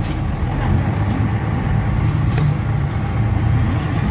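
Rába Premier 091 city bus driving, its diesel engine and road rumble running steadily inside the passenger cabin, with a couple of light rattles.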